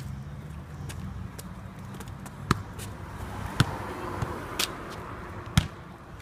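A football being kicked and bouncing on a tarmac pitch: a handful of sharp thuds, the loudest about two and a half, three and a half and five and a half seconds in, over a low steady rumble.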